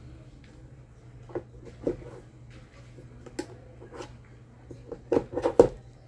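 Scattered light clicks and knocks of small fan parts being handled during reassembly, with a cluster of louder knocks near the end. A steady low hum runs underneath.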